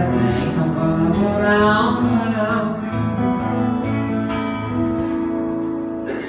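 Live acoustic guitars strumming with a man's voice singing, the last notes held and ringing through the second half.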